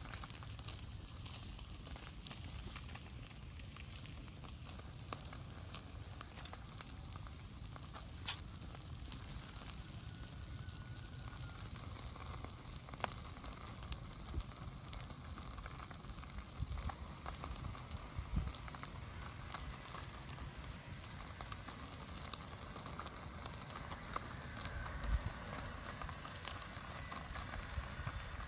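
Crackling and sizzling of food cooking over an open fire: a steady hiss with many small sharp pops scattered through it.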